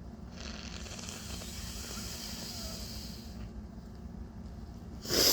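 A woman's long, hissing breath for about three seconds, then a single loud, sudden sneeze near the end.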